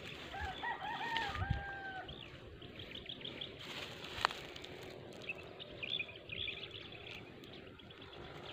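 A rooster crows once in the first two seconds: a few short rising notes, then a long held final note. Small birds chirp in short high calls through the rest, with a single sharp click about four seconds in.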